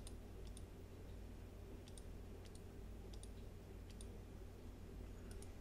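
Computer mouse button clicks, about seven short clicks spaced irregularly, some in quick pairs, over a low steady background hum.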